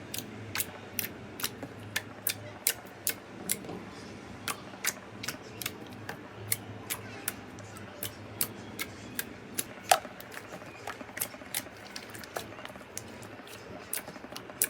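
Slime being worked by hand, giving a string of sharp little pops and clicks, two or three a second, with one louder pop about ten seconds in.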